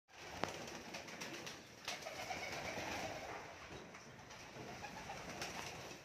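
Pigeons cooing in a flock, with a couple of sharp clicks near the start.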